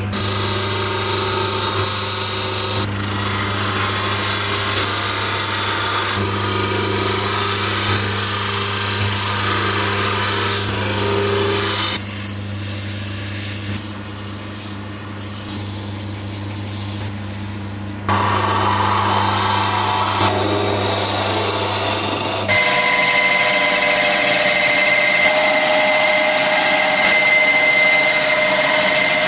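Small wood lathe running with a steady motor hum while a turning tool scrapes and cuts the spinning wooden blank, in several edited passes. About 22 seconds in, a drill takes over with a steady high whine as its bit bores into the turned wooden piece.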